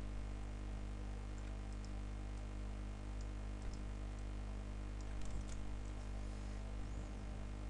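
Scattered faint clicks and taps of a computer keyboard and mouse, irregular and a few at a time, over a steady low electrical hum picked up by the microphone.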